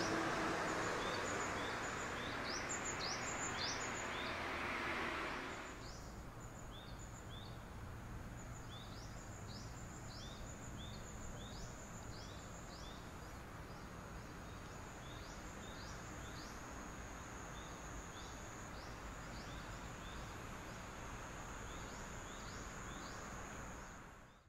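Outdoor ambience of small birds giving short, repeated high chirps over a steady high insect drone. For about the first five seconds a louder rushing noise covers them, then cuts off suddenly.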